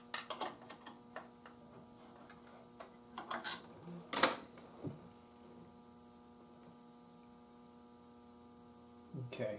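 Scattered clicks and knocks of hands disconnecting wiring on an antique breadboard radio to remove its filament regulator, with one sharper click about four seconds in. A steady mains hum runs underneath.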